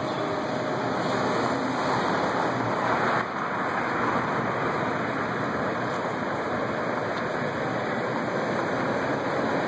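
Steady city street noise of passing car traffic, a continuous even rush with no distinct events; it dips briefly about three seconds in.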